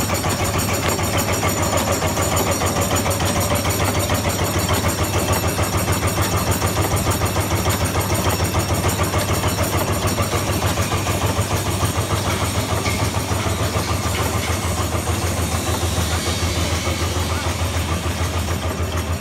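Automatic wet tissue making and packing machine running steadily, a loud, even mechanical clatter with a fast repeating beat.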